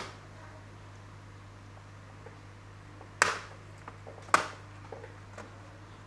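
Two sharp clicks of plastic casing parts being handled during laptop disassembly, a bit over a second apart, with a few faint ticks after them, over a steady low electrical hum.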